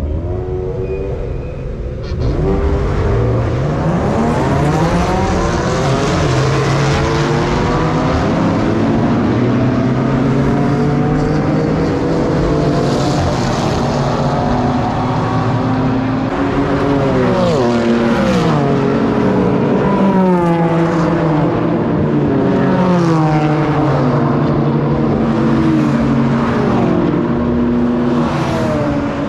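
Several track cars' engines revving hard as they accelerate down the circuit's main straight. The engine notes climb and drop back repeatedly as they shift up through the gears, getting louder about two seconds in.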